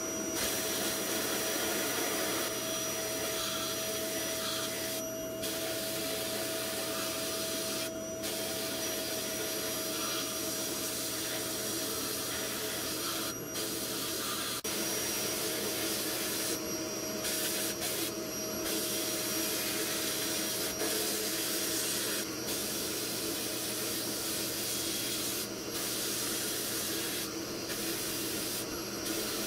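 Sandblasting gun in a blast cabinet hissing steadily as it blasts rust off small airgun parts, with several brief breaks when the trigger is let off and a steady hum underneath.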